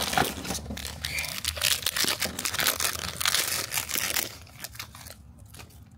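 Crinkly foil wrapper of a toy blind bag being torn open and crumpled by hand: dense, irregular crackling and tearing that dies down after about four seconds.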